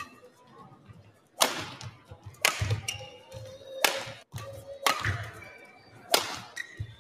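Badminton rally: rackets striking the shuttlecock five times, about a second apart, each a sharp crack.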